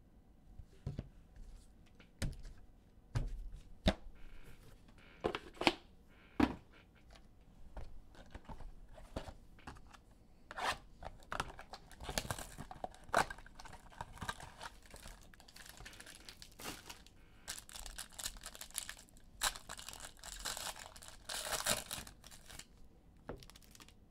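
A few knocks and clicks of cards being handled, then a trading card pack's wrapper being torn open and crinkled for several seconds, with the cards slid out and set down on a table.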